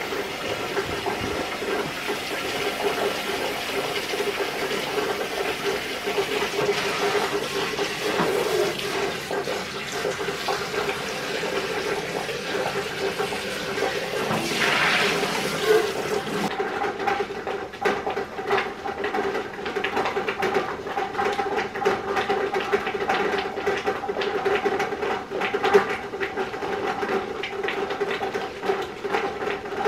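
Kitchen faucet running water into a metal pot in the sink as it is rinsed out, over a steady hum. From about halfway, light clicks and knocks run through it.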